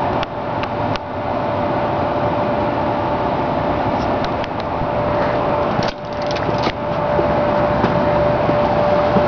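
Steady running noise of a motor vehicle nearby, with a constant high hum through it. The sound briefly drops out about six seconds in.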